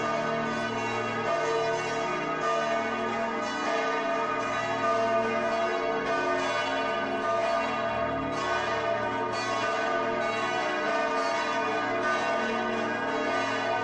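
Church bells ringing: several bells struck in turn, roughly a stroke a second, their tones overlapping into a continuous ring.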